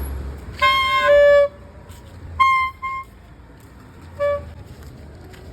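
Toy whistle (peeka) blown in reedy, horn-like toots. A long toot comes about half a second in, two short ones follow around two and a half seconds, and a last short one comes near the end.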